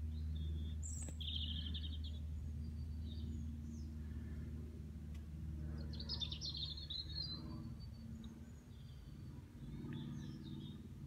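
Birds chirping, once about a second in and again around six seconds in, over a steady low background hum.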